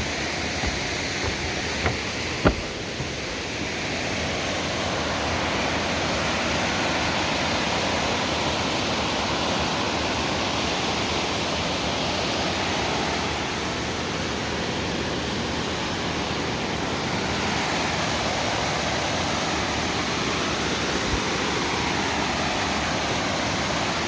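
Steady rush of flowing river water, with one sharp knock about two and a half seconds in.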